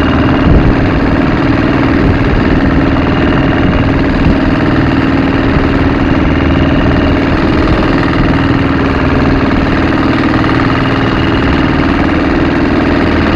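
Boat engine running steadily at an even pitch while under way, with water rushing and splashing along the wooden hull.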